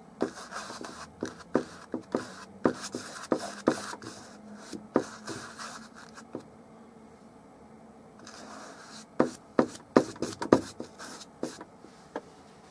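Large flat bristle brush dabbing and scrubbing oil paint onto canvas: a run of sharp taps and scratchy strokes, a pause of a couple of seconds, then another cluster of louder taps.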